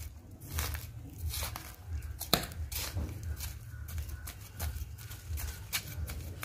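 A small hand trowel scraping damp soil off the sides of a hibiscus root ball and cutting through its side roots, heard as a run of short, irregular scratching and tearing scrapes as the soil crumbles away.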